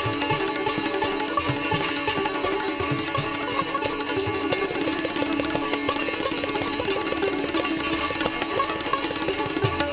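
Indian classical instrumental music: rapid plucked-string phrases over a steady drone, with occasional low drum strokes.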